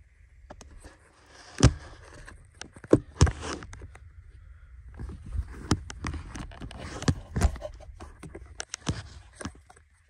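Handling noise from a handheld camera being moved about: rustling and scraping with several sharp knocks and bumps at irregular moments.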